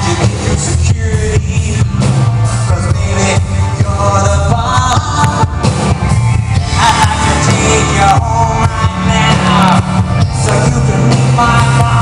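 Live rock band playing loud, bass-heavy music with drums while a man sings lead, heard from the audience seats.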